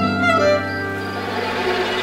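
Cartoon underscore on strings, plucked and bowed, with a short falling run near the start. From about a second in, a buzzing hum rises under it as a swarm of flies comes in.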